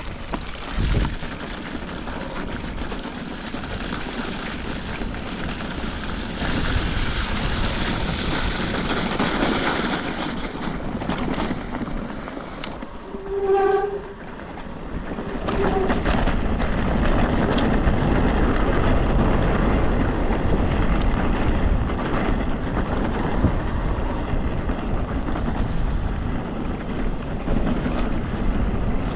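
Wind buffeting the microphone over the rumble and rattle of a Specialized Levo e-mountain bike being ridden along a rough, icy track, growing louder a little past halfway. About 13 seconds in, a short pitched sound is heard, with a fainter one about two seconds later.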